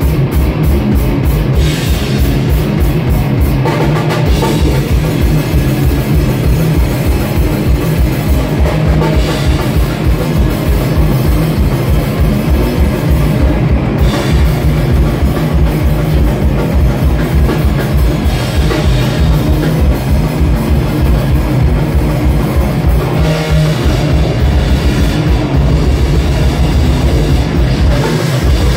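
Live grind/crust punk band playing loud and fast: a pounding drum kit with rapid, even kick-drum strokes under distorted electric guitars.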